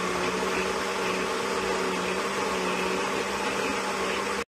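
Countertop blender motor running steadily, puréeing soaked chiles, tomato, onion and garlic into a thick sauce: an even whirring rush over a constant hum. It cuts off abruptly near the end.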